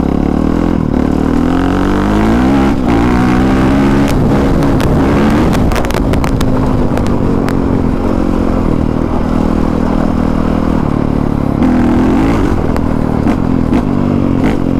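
Honda CRF450R's single-cylinder four-stroke engine running under way on a dirt bike, its revs rising and falling with the throttle. Scattered sharp clicks and clatter come through the middle.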